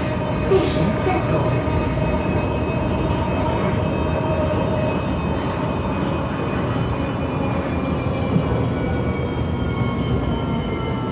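A CSR Zhuzhou 'AMY' light-rail train heard from inside the car while it runs: a steady rumble of wheels on track with a whine of several tones that slowly fall in pitch in the second half.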